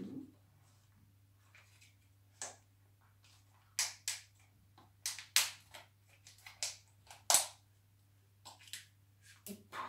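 Irregular sharp clicks and taps of a plastic mascarpone tub and its lid being handled and worked open, over a faint steady low hum.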